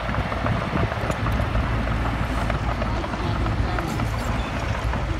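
Mitsubishi BD2G small crawler bulldozer's diesel engine running steadily under load as it pushes soil, with its steel tracks clanking and rattling throughout.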